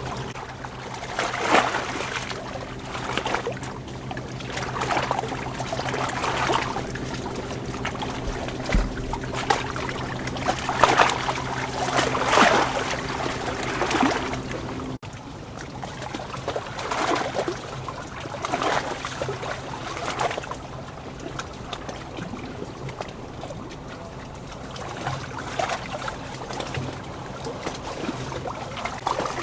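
Running water splashing and washing in repeated surges every second or two, over a steady low hum. The sound changes abruptly about halfway through.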